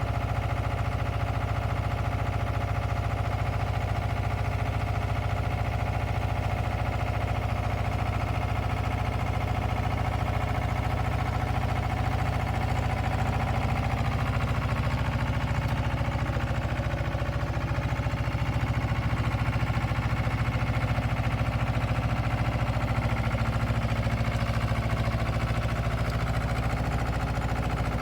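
Diesel engine of a Bitelli BB 611 asphalt paver running steadily at idle, growing a little louder about two-thirds of the way in.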